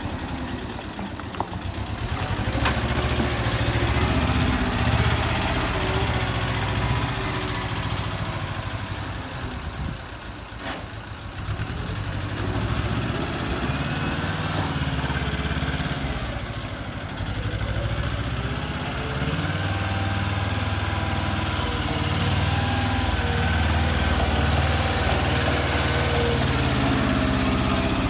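Small wheel loader's engine running, its pitch rising and falling as it is revved while the machine drives and works its bucket.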